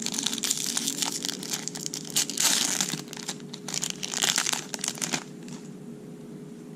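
Crinkling and crackling of a foil trading-card pack wrapper being handled, for about five seconds before it stops.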